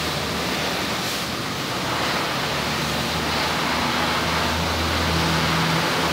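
High-pressure water spray hissing steadily as it is played over a dirt bike, with a steady low hum underneath.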